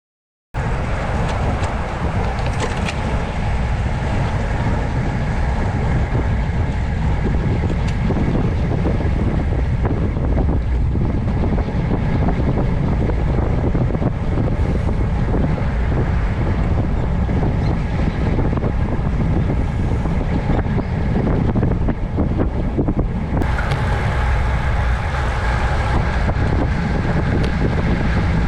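Heavy wind rushing over the microphone, with a vehicle's running noise underneath, starting abruptly about half a second in and steady throughout.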